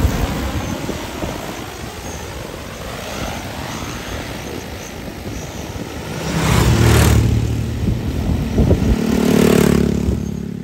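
DJI Agras T30 agricultural spraying drone's six rotors running in a steady buzz, growing much louder with a deep hum from about six seconds in as it hovers low close by.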